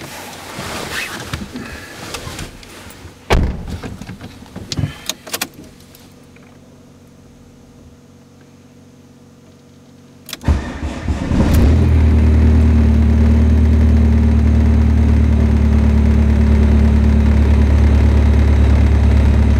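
A Chevrolet Cruze's 2.0-litre four-cylinder turbodiesel, fitted with a full aftermarket exhaust and a sport catalytic converter, cranks and starts about ten seconds in and settles into a steady idle, heard from inside the cabin. Before that come a few knocks and rustles in the car, then a quiet spell.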